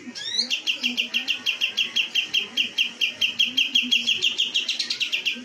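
Kapas tembak songbird calling: a rising opening note, then a fast, even run of sharp chipping notes, about seven a second, that stops abruptly near the end.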